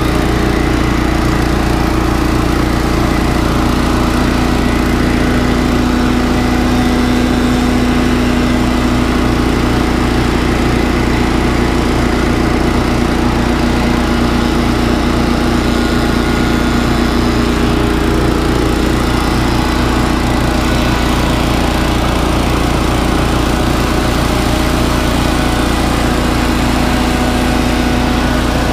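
Little Wonder walk-behind push leaf blower's small petrol engine running steadily, mixed with two petrol backpack leaf blowers running at the same time, all blowing leaves.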